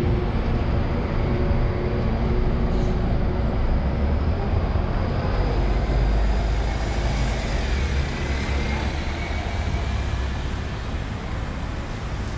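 Street traffic noise, with a heavy vehicle's engine running close by and a steady low rumble throughout.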